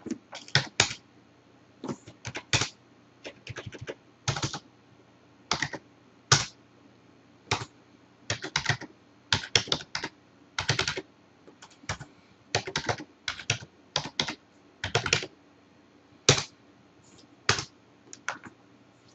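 Computer keyboard keystrokes in irregular short runs and single presses with brief pauses, as an IP address is typed in.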